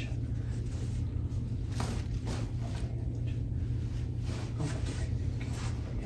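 Hands and a cloth rubbed firmly along the bare shin in a deep-tissue massage of the tibialis anterior: soft, irregular swishing strokes over a steady low hum.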